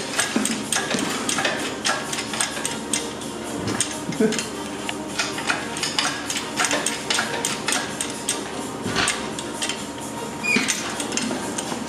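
Irregular metallic clinks, taps and knocks of hands and tools on the hoisted Toyota 2JZ engine and V160 transmission as it is worked free of the car.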